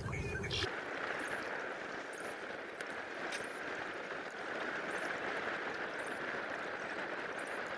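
Steady rushing hiss of a flowing river.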